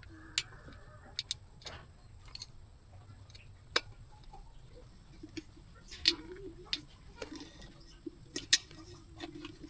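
Sporadic light clicks and taps, about a dozen, the loudest about four seconds in and near the end, like small parts and hand tools being handled on a workbench during a repair, over a faint low background hum.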